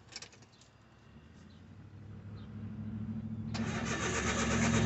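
Mazda Autozam AZ-1's turbocharged three-cylinder engine on a cold start after months sitting, its weak battery boosted by a charger: it cranks, growing steadily louder, then catches and runs about three and a half seconds in.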